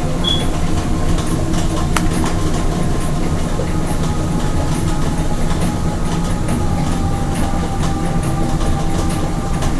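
Steady low engine rumble running evenly throughout, with a single click about two seconds in.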